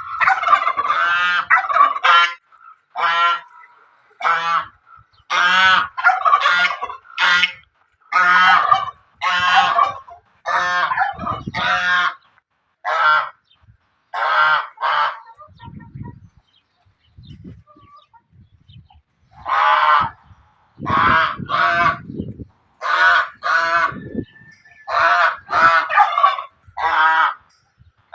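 A bird calling loudly and over and over, harsh pitched calls in quick runs, with a pause of a few seconds about halfway through before the calls resume.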